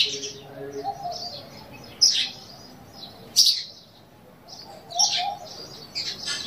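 Birds chirping: short, sharp high chirps every second or so, loudest about two and three and a half seconds in, with a lower wavering call twice.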